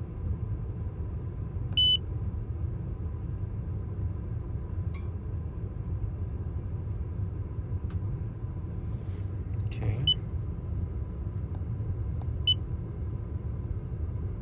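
Three short, high electronic beeps from a handheld OBD2 scan tool as its keys are pressed, a few seconds apart, over a steady low rumble inside the car.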